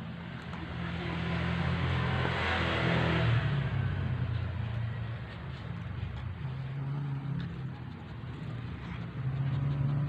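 A motor vehicle's engine running close by, its noise swelling to a peak about two to three seconds in as it passes and then fading, over a steady low engine hum.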